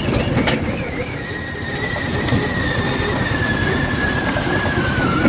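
ATV running along a bumpy trail: a steady whine from the engine and drivetrain that slowly drops in pitch, over a rough rumble and rattle from the ride, with a sharp knock about half a second in.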